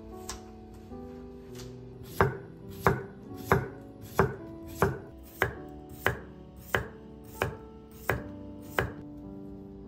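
Kitchen knife slicing a cucumber into thin rounds on a wooden cutting board: an even series of about eleven sharp knocks of the blade on the board, about three every two seconds, starting about two seconds in.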